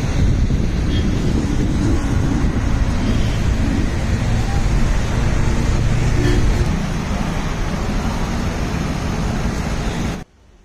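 Wind buffeting the microphone outdoors, a loud steady rumble that cuts off abruptly near the end.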